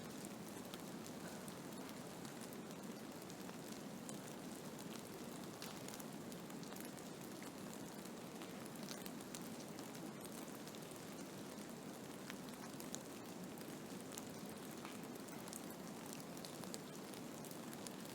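Blizzard: a steady hiss of wind-driven snow, with many fine, irregular ticks of snow grains striking a surface.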